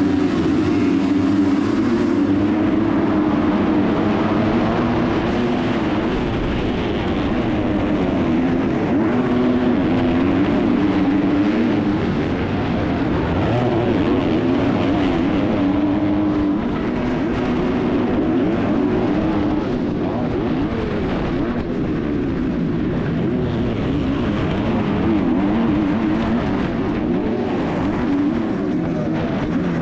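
Kawasaki 250cc four-stroke motocross bike, heard from the rider's helmet, launching off the start gate and racing flat out among other MX2 bikes. The engine note keeps rising and falling in pitch as it revs hard through the gears.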